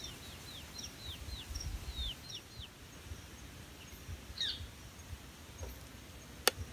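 A bird calling with quick short downward chirps, about three a second, for the first two and a half seconds, then another chirped call near the middle. A single sharp click comes near the end, over a low rumble.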